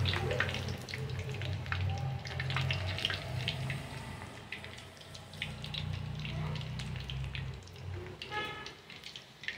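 Chicken drumsticks deep-frying in hot oil: a steady sizzle full of small crackles and pops. A low hum runs underneath and fades near the end.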